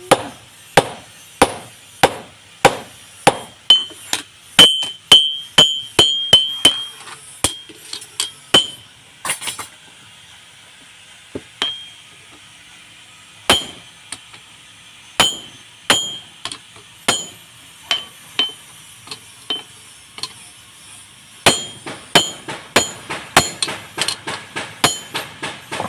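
A blacksmith's hammer striking steel while cutting leaf-spring steel, in a steady series of sharp metallic blows, about one and a half a second, many leaving a short ring. The blows thin out to a few scattered strikes midway, then come back quicker near the end.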